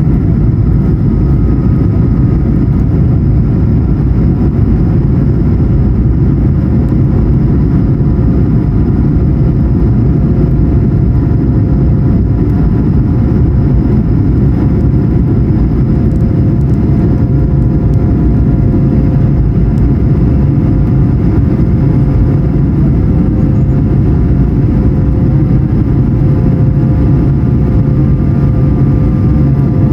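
Cabin noise inside an Airbus A220-100 in flight: a steady, loud rumble of airflow and its Pratt & Whitney PW1500G geared turbofan engines, with a few faint steady engine tones over it.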